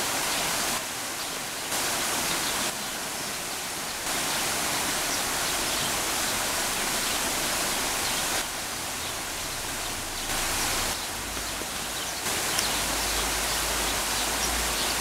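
Water running over the stones of a shallow stream: a steady rushing hiss that dips slightly in level a few times.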